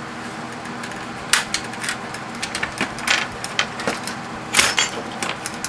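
Scattered clicks and knocks of small metal and plastic parts being handled and pried out while a microwave oven is taken apart for scrap, over a faint steady hum.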